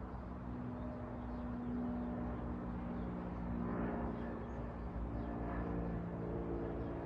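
Steady low mechanical hum made of several held tones over a low rumble, shifting slightly in pitch about halfway through.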